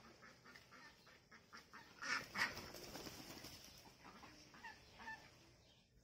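A flock of white domestic ducks calling in a run of short, harsh quacks, loudest in a burst about two seconds in.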